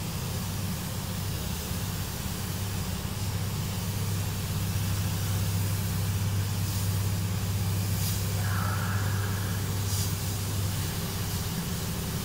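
Steady low hum of a paint booth's ventilation fans, with the even hiss of a compressed-air spray gun spraying paint onto a car body.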